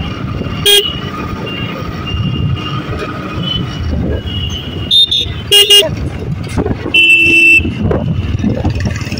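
Vehicle horns beeping in street traffic: a short beep about a second in, two more around the middle, and a longer one near the end, over the steady low rumble of a motorcycle ride.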